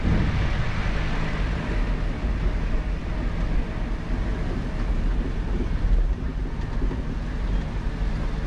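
4x4 vehicle driving along a rough dirt track: a steady low rumble of engine and tyres with a faint even hum, heard from on board.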